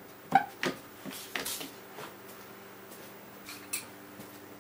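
Scattered light knocks and clicks of hand tools being handled and set down on a plywood cabinet panel, the sharpest just after the start, over a faint steady hum.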